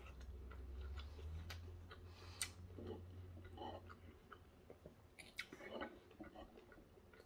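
Faint chewing and scattered small mouth clicks of someone eating soft, saucy pork and beans by hand. A low hum underneath stops about four seconds in.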